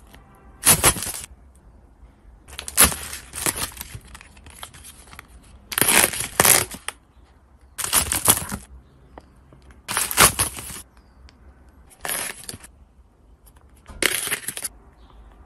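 Food and containers handled while restocking a refrigerator: a series of short, crisp rustling and crunching bursts, about eight of them, roughly every two seconds.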